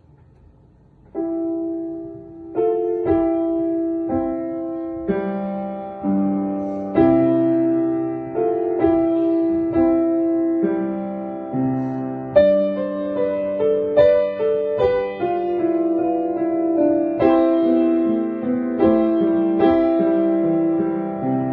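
Background piano music: notes and chords struck at a slow pace, each ringing and fading, starting about a second in.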